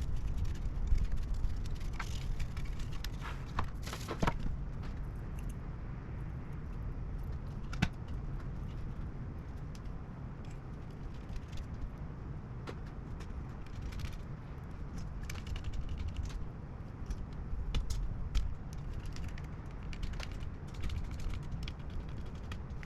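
Scattered small clicks and light rattles of hard objects being handled, over a low steady rumble.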